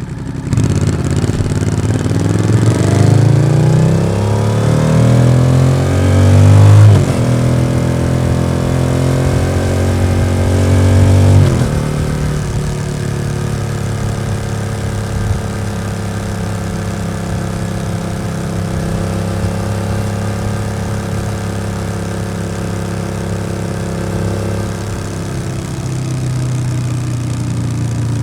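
Yamaha XSR700's parallel-twin engine through an SC-Project aftermarket exhaust, accelerating through the gears. Its pitch rises, drops at an upshift about seven seconds in, rises again to a second upshift at about eleven seconds, then holds steady at a cruise.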